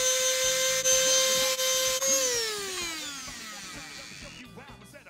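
Electric detail sander running on a wooden tiller with a steady whine, then switched off about two seconds in, its whine sliding down in pitch as the motor winds down and fades.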